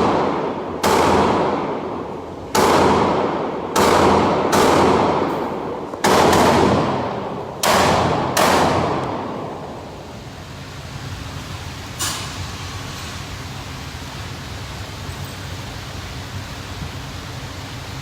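Seven gunshots fired at an irregular pace over about eight seconds, each ringing out in a long echoing tail, then a single fainter shot a few seconds later, over a steady ventilation hum.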